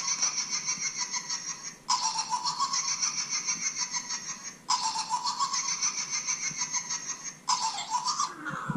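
Cackling laugh sound effect, the same short clip looped, starting over about every three seconds.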